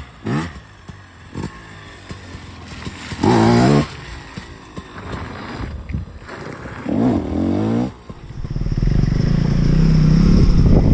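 Dirt bike engines revving in short bursts that rise and fall in pitch, the loudest about three seconds in. From about eight seconds on, a bike engine runs close and steady.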